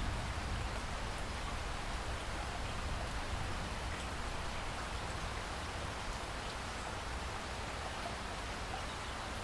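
Steady rain falling, an even hiss with scattered faint drop ticks. No thunder or music.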